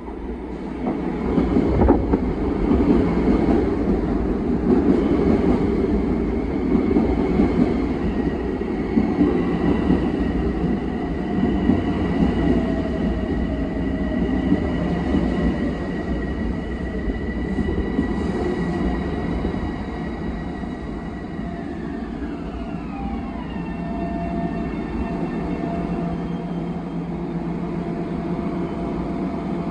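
Long Island Rail Road M7 electric train pulling into the station, its wheels rumbling on the rails under a steady electric whine. About 22 seconds in the whine glides down in pitch as the train slows to a stop, leaving a quieter steady hum.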